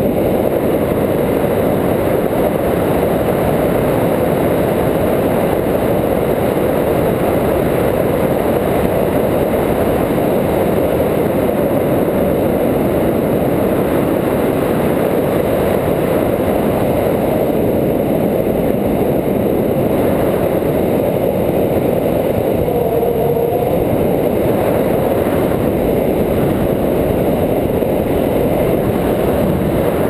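Steady, loud wind noise from air rushing over the microphone of an action camera held out on a pole during a tandem paraglider flight.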